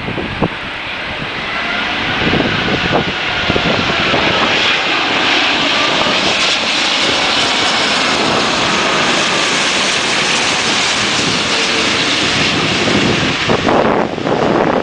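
Airbus A380 jet engines passing by: a roar that builds, holds loud for several seconds with a faint gliding whine in it, then fades away near the end.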